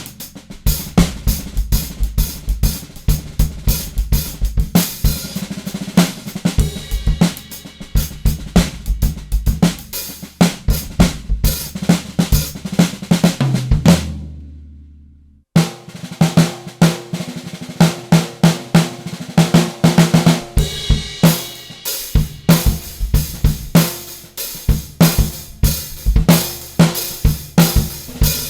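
Drum kit played in grooves and fills around a 14x3.5-inch solid-block imbuia piccolo snare drum, with bass drum, hi-hat and cymbals. About halfway through the playing stops, a low drum rings out to silence for about a second and a half, then the playing starts again.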